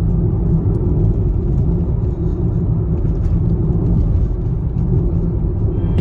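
Steady low rumble of car noise, heard from inside a Nissan Leaf ZE0 electric car.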